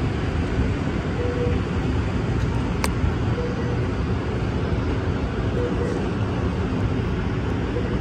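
Wind buffeting the microphone over a steady low rumble from an Amtrak Capitol Corridor train standing at the platform. A faint short tone comes back about every two seconds, and there is one sharp click about three seconds in as the phone is handled on its tripod.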